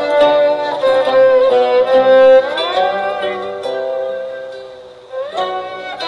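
Background score with a violin melody over plucked strings. It fades out about five seconds in and picks up again just after.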